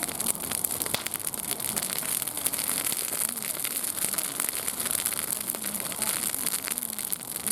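Open wood fire crackling, a dense run of small pops and snaps over a steady hiss.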